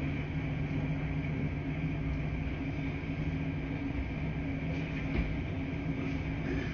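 Washing machines running: a steady mechanical hum over a low rumble, with a faint knock about five seconds in.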